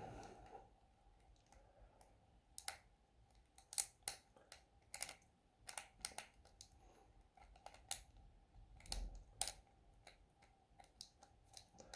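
Faint, irregular metallic clicks of a four-pin padlock's pin tumblers being raked up and down by a lock-pick rake while a tension bar holds light turning pressure on the plug. The clicks come in uneven clusters, several close together at times.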